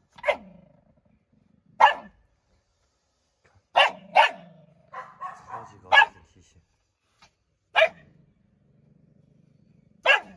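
Dog barking sharply about seven times at irregular intervals, with a low growl between barks: a food-guarding warning at another dog nosing at the cage bars.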